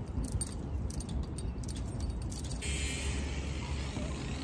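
Steady low engine rumble, with a hissing machine noise joining about two and a half seconds in.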